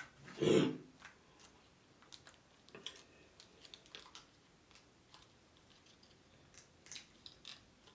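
Close-miked eating of fried chicken: faint scattered mouth clicks and smacks from chewing. A short voiced grunt comes about half a second in.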